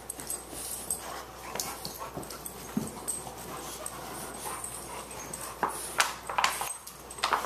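A Boxer puppy and an adult Boxer playing tug-of-war over a plush toy: scuffling and short dog play noises. The sharp noises get louder and come thicker in the last two seconds.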